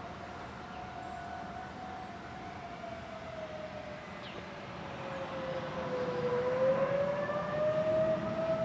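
Distant outdoor warning siren sounding a single-tone wail. Its pitch sags and then climbs back, and it grows louder from about five seconds in as it sweeps around.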